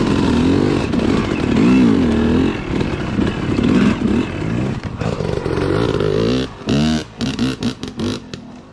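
Yamaha YZ250 two-stroke dirt bike engine being ridden, its pitch rising and falling with the throttle. About six and a half seconds in it drops to a few short bursts, then runs quieter near the end.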